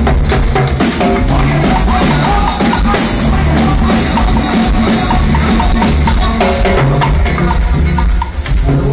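Live cumbia band playing through the PA: a steady bass line and keyboard over drums, with timbales and congas keeping the rhythm.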